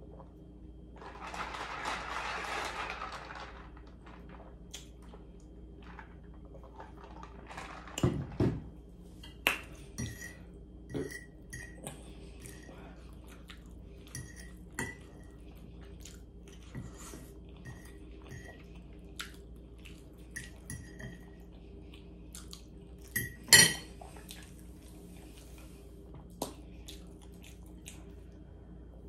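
Scattered clinks and taps of a fork and food against a plate while eating, the loudest about eight seconds in and again a few seconds before the end. Near the start, about two seconds of noisy sipping from a drink.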